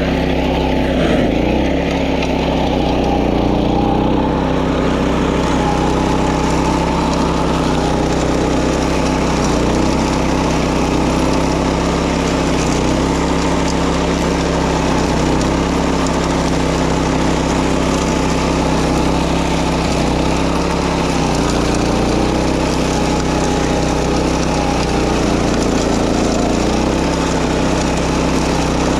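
Small engine of a walk-behind wing mower running steadily while mowing, its note dipping slightly a couple of times as the load changes.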